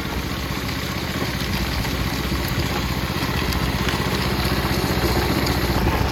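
A vehicle engine running steadily, slowly getting a little louder.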